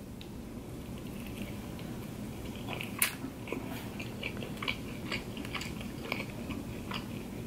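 A person chewing a soft Hawaiian sweet roll stuffed with barbecued rib meat, close to the microphone: quiet, scattered wet mouth clicks and smacks, the sharpest one about three seconds in.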